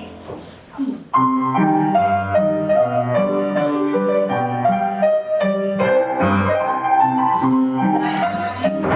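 Piano playing a tune in a steady rhythm for a barre exercise, starting about a second in after a brief lull.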